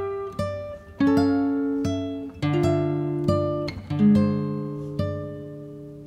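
Background music: an acoustic guitar playing slow plucked notes and chords, each ringing out and fading before the next.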